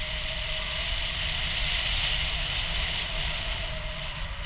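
Airflow rushing over the camera in paragliding flight: a steady hiss with low wind rumble, and a faint steady whistle underneath.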